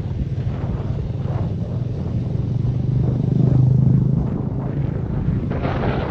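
Motorcycle engine running under way, a steady hum that swells louder about halfway through and then eases, with wind rushing over the microphone.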